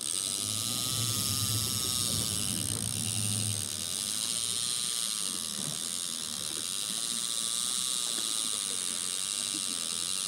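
Conventional fishing reel in free spool, its spool spinning with a steady whir as a heavy jig of almost two pounds drags line down toward the bottom. A low hum runs under it for the first few seconds.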